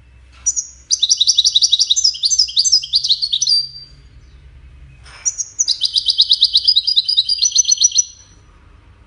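European goldfinch singing: two phrases of rapid, high trilled song, each about three seconds long, with a short pause between them.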